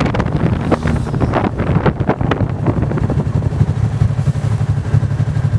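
Motorcycle slowing with wind buffeting the microphone, then its engine idling steadily once it has stopped, from about three seconds in.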